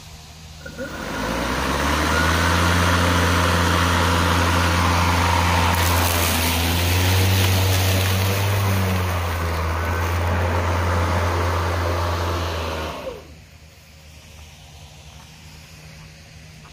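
Hart 40-volt brushless 20-inch cordless push mower starting up about a second in. It runs with a steady motor-and-blade hum and the hiss of grass being cut and bagged, then cuts off suddenly about three-quarters of the way through.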